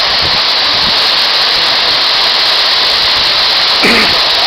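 Waterfall over 30 metres high, its falling water making a loud, steady rushing noise.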